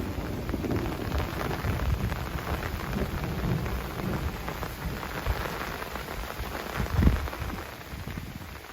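Steady rain falling on surfaces, with many separate drops heard, over a low rumble of thunder that eases in the second half. There is one short, loud thump about seven seconds in.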